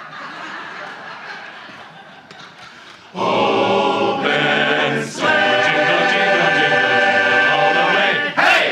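Barbershop chorus singing a cappella in close harmony: a quieter stretch, then about three seconds in the full chorus comes in loud on sustained chords, breaks briefly, and holds a final chord that cuts off near the end.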